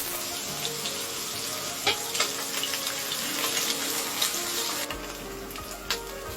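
Small fish deep-frying in hot oil: a steady sizzle with scattered pops and crackles, easing off about five seconds in.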